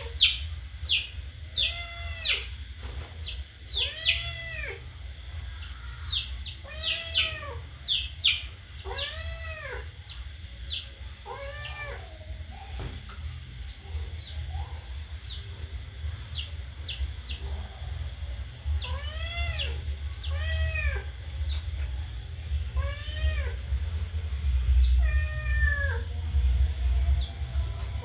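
A cat meowing over and over, each meow rising and then falling in pitch, about one a second with some gaps. Short high peeping chirps are mixed in, over a low steady hum.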